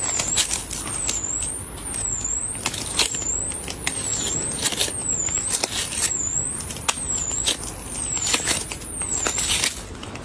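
Crisp watermelon flesh crunching and tearing as fingers dig it out of the rind, in many short crackles. A high whine rising and falling about once a second runs underneath.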